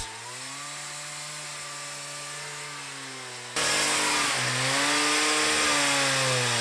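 Gas-powered handheld concrete cut-off saw (a water-fed wet saw) running at high speed as it cuts into a concrete block foundation wall, the engine note wavering slightly. About three and a half seconds in it becomes suddenly much louder and harsher, with a gritty hiss over the engine.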